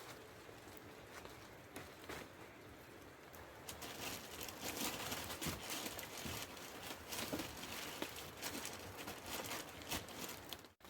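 Rain pattering on a tarp shelter roof, a dense scatter of small drop ticks over a steady hiss, heavier from about four seconds in.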